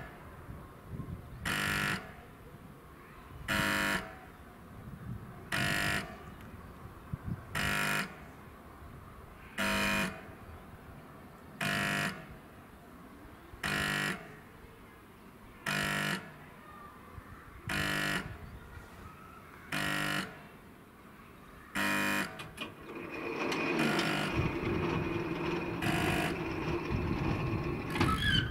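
Old SSSR-type level-crossing buzzer-horn sounding in short half-second blasts about every two seconds, about a dozen times, as the crossing warns of an approaching train. The blasts stop about 22 seconds in, and a steady hum builds over the last few seconds while the barrier arms lower.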